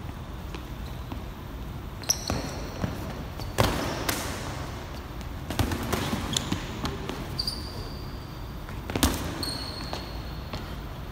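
Boxing gloves landing punches in sparring: several separate thuds, the loudest about three and a half seconds in, with short sneaker squeaks on the gym floor between them, echoing in a large hall.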